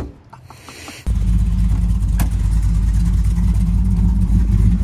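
Straight-piped V8 in a VS Holden Commodore, running with no exhaust. It comes in suddenly, loud, about a second in and holds a steady, deep idle.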